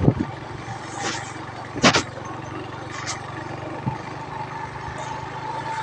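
Small motorcycle engine running steadily while riding, with a sharp clack about two seconds in.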